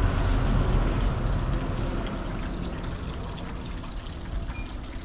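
Water pouring and trickling steadily, growing fainter over the few seconds.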